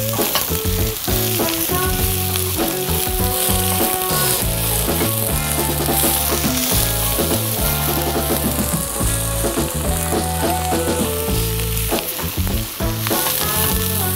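Sliced pointed cabbage and garlic sizzling in hot sunflower oil in a wok while being stirred and turned with a spatula. Background music with a stepping bass line plays underneath.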